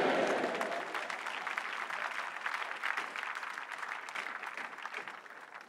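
Congregation applauding, a dense patter of many hands clapping that dies away toward the end.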